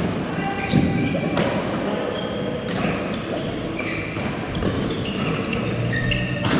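Badminton rally: a few sharp racket strikes on the shuttlecock at uneven intervals, with sports shoes squeaking on the court mat and voices from players across the hall.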